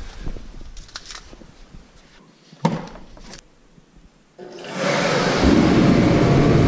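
A few light handling clicks and one sharp knock, then about four and a half seconds in a liquid-fuelled forced-air torpedo heater starts up. Its fan and burner build within half a second to a steady loud roar.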